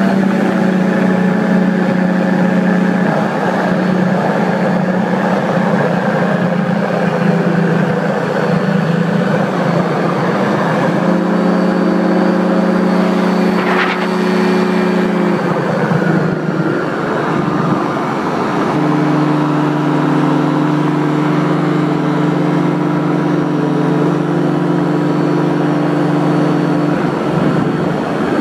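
Paramotor engine and propeller running steadily in flight, the engine note shifting a few times: about a third of the way in, around halfway, and again about two-thirds through.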